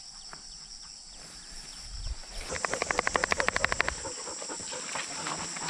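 An animal's rapid rattling call, about ten strokes a second for roughly a second and a half, getting louder as it goes, over a steady high-pitched drone.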